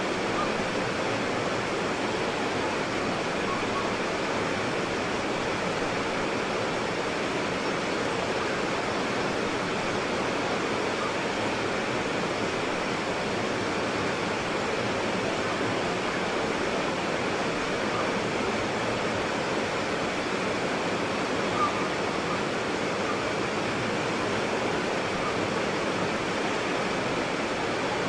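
White water rapids rushing in a steady, unbroken roar of churning water.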